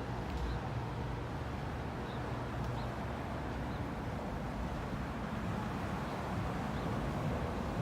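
Steady rumble of street traffic, an even noise without distinct events.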